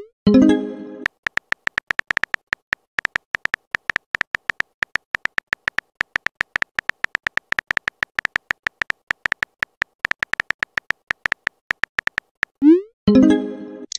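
Synthetic phone-keyboard typing clicks, fast and uneven with short pauses, from a texting-story app animating messages being typed. Near the start and again near the end, a rising whoosh and a short chime play as a message is sent.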